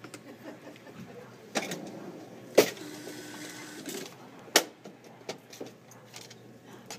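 Cash register at a checkout: a few sharp clacks, the loudest about two and a half seconds in, followed by the receipt printer running for about a second, then another clack and lighter clicks and clinks from the open cash drawer as change is taken out.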